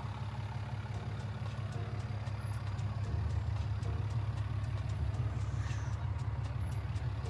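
Ram 2500's Cummins turbo-diesel engine idling steadily: a low, even rumble with a faint repeated ticking over it.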